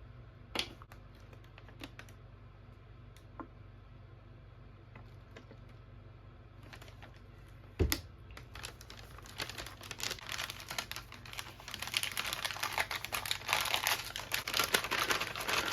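MRE flameless ration heater starting to react after water is poured in, a fast fizzing crackle that builds and grows louder over the second half. A single thump comes about halfway through.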